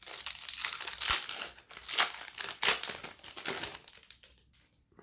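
Plastic trading-card pack wrapper crinkling loudly as it is handled and opened, for about four seconds, then dying away.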